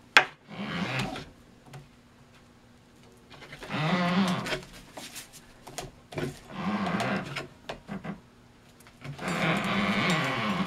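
Cardboard cylinder shell turning on the rollers of a rotating spiking cart as spiking string is wound on: a rolling whir in several bursts of one to two seconds, with a sharp click just after the start.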